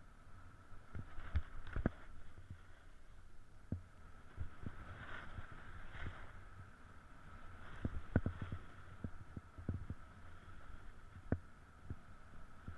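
Snowboard sliding over a groomed, bumpy snow piste, heard from a camera on the rider: a steady scraping hiss with irregular knocks and thumps as the board chatters over the uneven snow.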